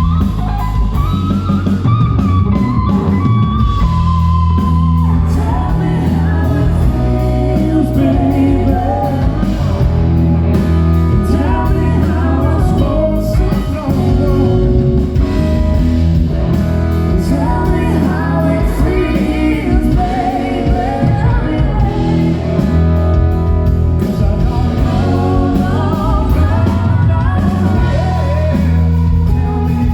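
Live rock band playing a song, with electric guitar over bass and drums and a voice singing.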